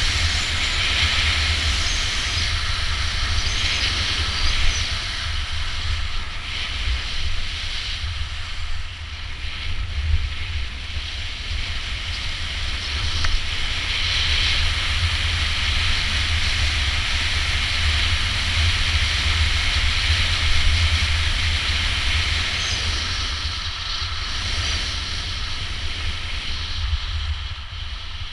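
Wind buffeting the microphone over the steady hiss of skis sliding on snow, the hiss swelling and fading every few seconds as the skier turns.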